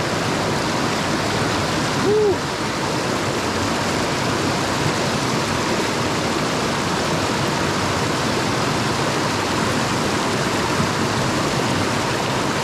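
Creek water rushing steadily over rocks. About two seconds in, one short pitched sound stands out, a brief hoot-like call or a low vocal sound.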